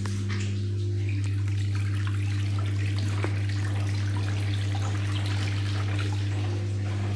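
Front-loading washing machine draining its rinse water between rinses: the drain pump hums steadily while water gushes from the drain hose into a bathtub.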